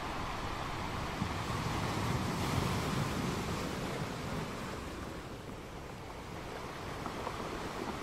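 Ocean surf: a steady rush of waves that swells about two to three seconds in and eases off again around five to six seconds.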